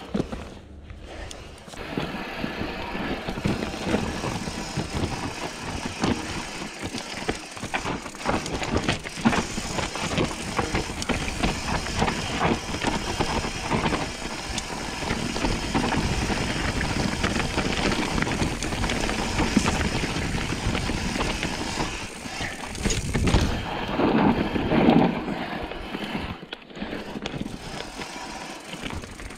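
Mountain bike descending a steep, loose, rocky trail: tyres crunching over dirt and rock, and the bike rattling and knocking over the rough ground, under a steady rush of wind on the GoPro's microphone. The knocking gets louder for a couple of seconds near the end.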